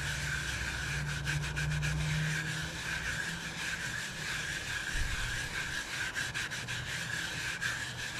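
Short-bristled tempered brass wire brush scrubbing rust off a radial drill press's tilting table that is wet with ATF and acetone, a steady scratchy rasping made up of repeated back-and-forth strokes. The scrubbing lifts the rust into a dark, muddy slurry.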